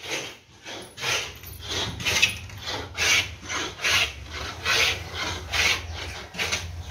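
Hand tool rasping across a plywood board in quick, even back-and-forth strokes, about two to three a second, over a low steady hum.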